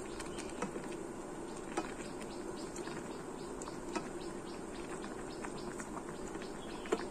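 Vegetables stirred in a saucepan of simmering water with a plastic spoon, over a steady faint bubbling. The spoon knocks sharply against the stainless steel pan four times.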